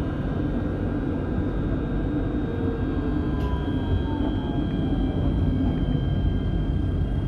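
Alstom Citadis tram running, heard from inside at the front: a steady low rumble from the wheels on the rails. Over it runs a faint electric whine that falls in pitch midway as the tram slows toward a stop.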